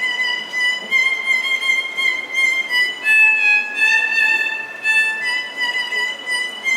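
Instrumental music: a high melody of long held notes that changes pitch every second or two.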